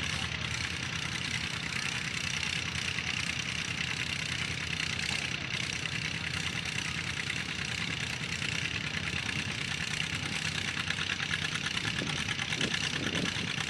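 John Deere 60's two-cylinder engine running under load with a steady, rapid exhaust beat as the tractor pulls the sled down the track.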